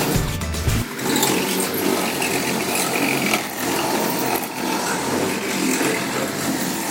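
A power tool running steadily, as a noisy machine whir. Background music cuts off about a second in.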